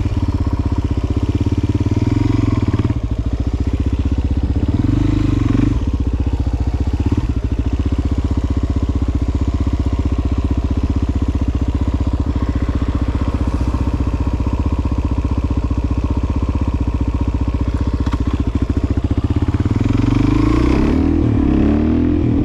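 Motorcycle engine running steadily while cruising. Its pitch dips and recovers briefly a few seconds in, and the revs climb near the end as the bike accelerates.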